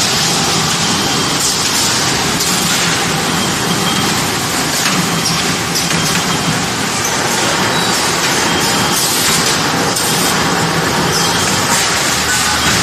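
Automatic salt pouch baling and packing machine running: steady loud machinery noise with a few short, sharper sounds over it.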